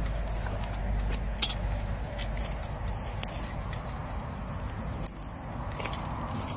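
Close rustling and handling noise with scattered clicks, over crickets trilling; the steady trill comes in strongly about three seconds in.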